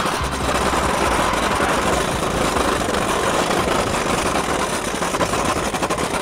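Electric drift trike rolling over paving blocks: a steady, loud rattling rumble from its small hard wheels running over the joints of the pavers.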